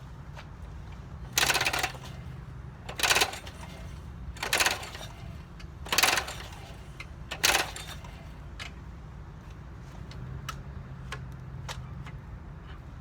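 Five quick pulls on a walk-behind lawn mower's recoil starter cord, about one every one and a half seconds; the engine turns over but does not fire.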